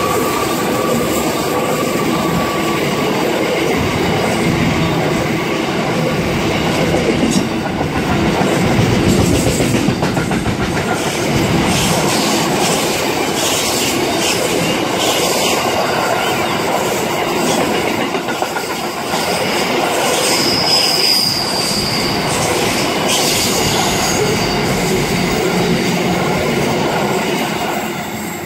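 Container wagons of a long freight train rolling past close by: steady wheel-on-rail noise with clicks over the rail joints and brief high squeals from the wheels, easing off at the very end as the last wagon goes by.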